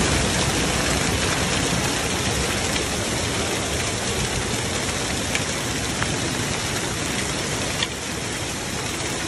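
A hailstorm with heavy rain coming down hard: a dense, steady hiss of falling ice and water, with a few sharper ticks of single hailstones.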